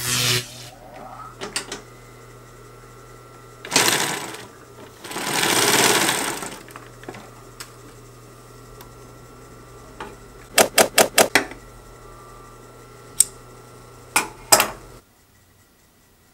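Consew 225 compound-feed walking-foot industrial sewing machine, set to its longest stitch of about three stitches per inch, sewing a test seam in two short runs over a steady motor hum. Later come a quick string of about five sharp knocks and a few single clicks, and the sound stops suddenly near the end.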